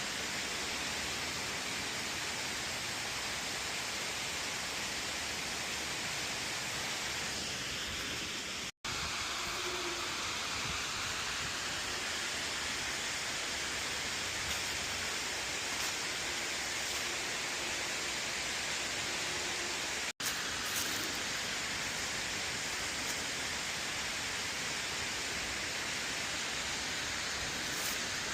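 Waterfall: a steady, even rush of falling water, broken twice by a momentary dropout.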